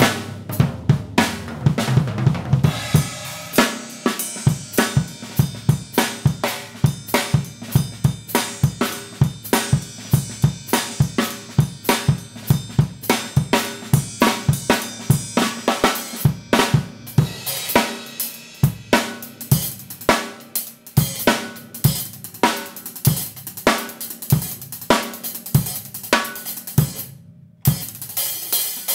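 Acoustic Tama drum kit played in a steady practice groove: rapid, even strokes on snare and drums with bass drum underneath, and hi-hat and cymbal wash coming in about three seconds in. Playing stops briefly near the end, then resumes.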